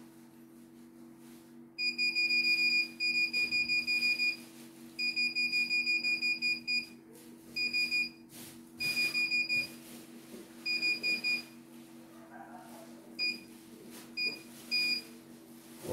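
The control-panel beeper of a CNY E900 computerised embroidery machine sounds a high beep as its keys are pressed to scroll through design files. It starts about two seconds in with several long runs of beeping, then turns to a few short single beeps near the end. A steady low hum runs beneath it.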